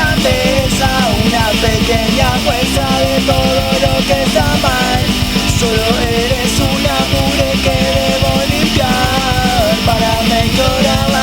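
Punk rock song playing: a band with drums and electric guitar, fast steady beat, and a melodic line sliding between notes over it.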